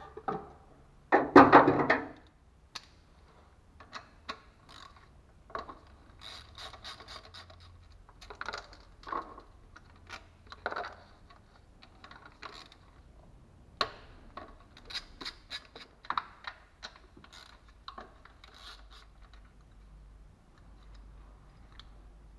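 Hand work on the top of a car engine: irregular clicks, knocks and rubbing as plastic wiring connectors, clips and small metal fittings are unclipped and handled, with one louder rasping sound lasting about a second near the start.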